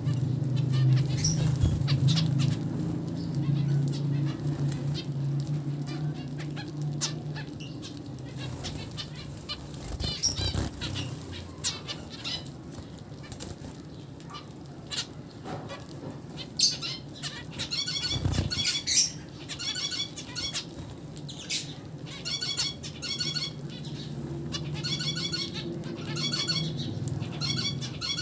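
A flock of zebra finches feeding together, with short wing flutters and sharp pecking ticks throughout. In the second half the birds' short calls repeat over and over. A low steady hum sits under the first several seconds and again near the end.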